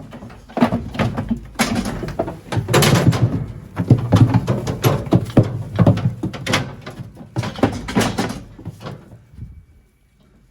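Sheep jostling along a metal handling race, hurdles and gates rattling and banging repeatedly; the clatter stops about nine and a half seconds in.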